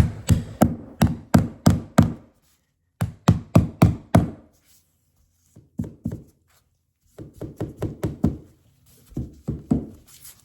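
Mallet tapping a vinyl floor plank to seat it tight against the next plank, in quick runs of knocks about three a second with short pauses between runs; the later taps are softer.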